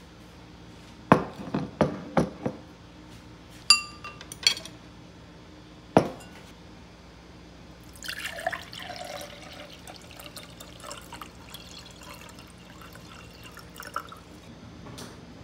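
A few sharp knocks of dishes being set down on a hard desk, then two ringing glass clinks and another knock. From about eight seconds in, water is poured into a glass drinking glass, splashing and filling it until it tails off near the end.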